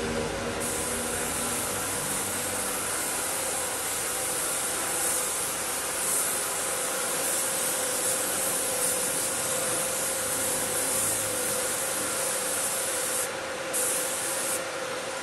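Gravity-feed paint spray gun hissing steadily as it sprays paint onto a car body, a long continuous pass that starts about half a second in. It breaks off briefly near the end, gives one more short burst and stops, with a steady hum underneath.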